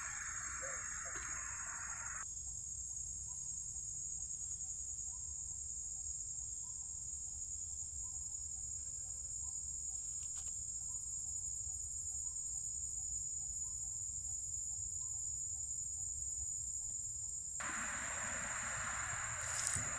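Steady, high-pitched insect chorus that rings on without a break. A broad rush of background noise comes in near the end.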